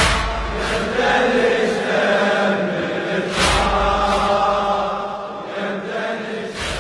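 Wordless choral chanting, voices holding long notes. A deep thump comes about every three and a half seconds, each followed by a lighter hit. The whole sound fades near the end.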